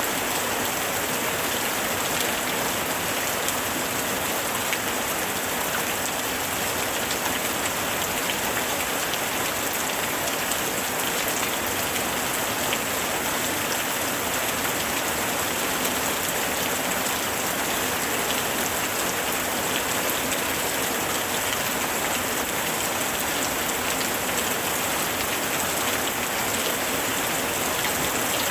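Steady rain falling, a dense even hiss of drops with many small patters and no let-up.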